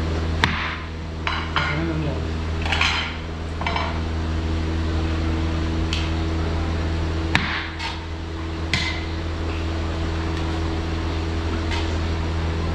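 A metal ladle clinking and scraping against a large steel cooking pot and serving dishes as rice is dished out, with several sharp clinks. A steady low mechanical hum runs underneath.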